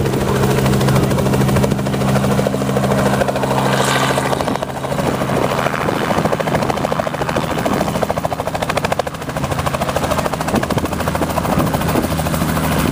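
Light two-bladed helicopter flying low and coming in to land, its rotor chopping in a fast, even beat over a steady engine drone.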